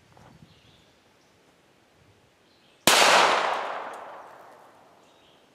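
A single shot from a Ruger Mark II Target pistol firing .22 Long Rifle: a sharp crack about three seconds in, its echo fading away over about two seconds.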